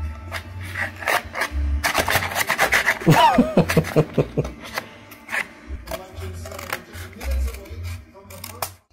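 Scissors cutting through a paper plate: a run of short snips with paper crackling and rubbing against the blades. About three seconds in, a brief wavering pitched sound joins in.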